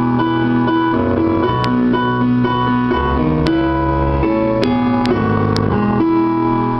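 Roland RD-300GX digital stage piano playing its rock piano sound: a run of held chords that change every second or so, with a few sharp clicks in the middle.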